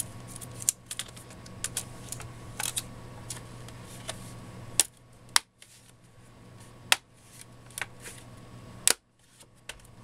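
Plastic hard-drive bay cover of a Toshiba Satellite laptop being fitted back on and pressed into place: a series of sharp plastic clicks and snaps, the loudest near five, seven and nine seconds, over a low steady hum.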